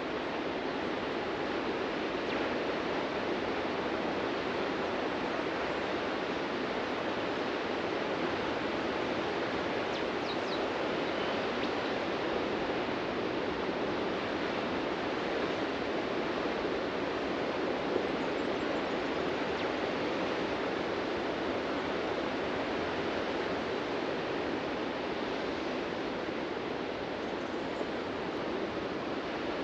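Ocean surf on a beach: waves breaking and washing in a steady, unbroken rush.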